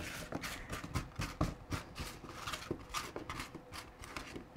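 Hands spreading cut red potatoes, coated in oil and herbs, across a parchment-lined sheet pan: irregular soft knocks and rustles as the pieces are pushed over the paper.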